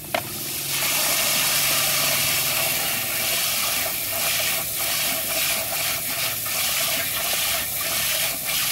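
Garden hose spray nozzle jetting water onto a plastic action figure over a tub: a click at the start, then a steady hissing spray that dips briefly now and then as the stream moves over the toy.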